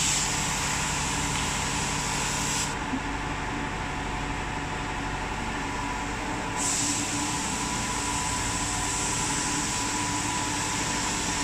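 Workshop machinery humming steadily, with a loud compressed-air hiss that cuts off about three seconds in and starts again about seven seconds in.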